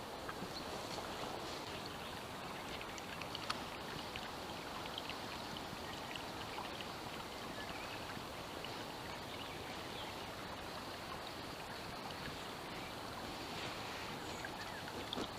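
Steady rushing of a small river's flowing water, with a few faint clicks, one sharper click about three and a half seconds in.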